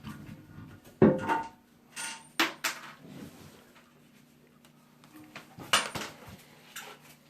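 Metal washers and nuts on toilet tank bolts clinking and clicking as they are handled and fitted, about five sharp clinks, a few with a brief metallic ring. A faint steady hum runs underneath.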